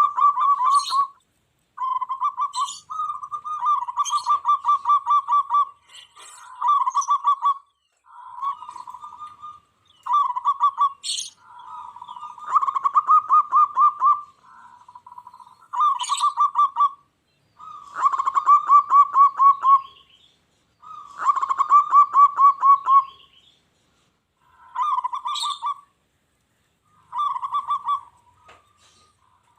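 Zebra dove (perkutut) cooing: about a dozen rapid, trilled cooing phrases of one to two seconds each, separated by short pauses. Brief high chirps appear now and then over the cooing.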